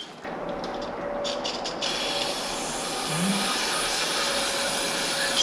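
A long, steady hiss of a spray, fuller and higher from about two seconds in.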